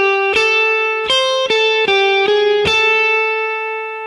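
Guitar playing a single-note A minor pentatonic lick with chromatic passing notes: about eight evenly picked notes, ending on a long-held root A.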